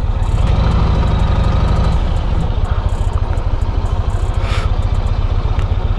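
Yamaha Stratoliner's V-twin engine running steadily with a low pulsing beat.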